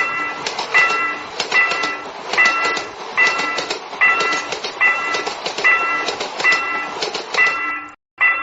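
Japanese level-crossing warning bell ringing its repeated ding, about one every 0.8 s, while a passing train clatters and rushes by. The train noise cuts off suddenly near the end.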